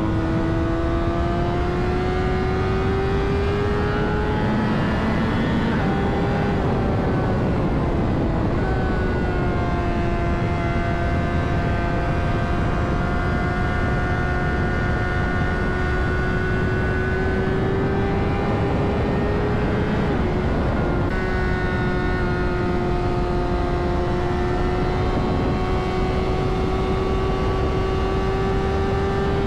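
Honda CBR600RR inline-four engine running at a steady high pitch under way, with wind noise; the pitch drifts slowly, dropping briefly about six seconds in and again about twenty seconds in.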